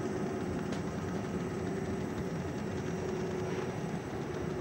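Carpet embossing machine running: a steady mechanical hum with a constant low tone as its engraved metal roller turns against the fabric.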